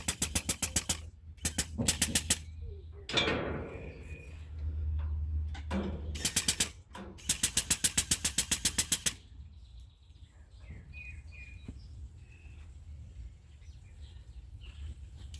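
Rapid mechanical clicking in several short bursts of about eight clicks a second, with a low hum between bursts.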